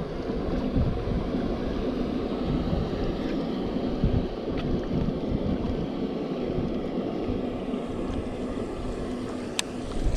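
Strong wind buffeting the microphone: a steady, gusty low rumble. A single sharp click near the end.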